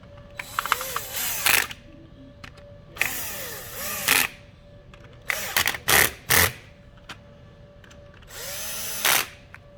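A small electric screwdriver whirring as it drives four screws into the cart's plastic case, in four separate runs of a second or so each, the third broken into short spurts as the screw snugs down.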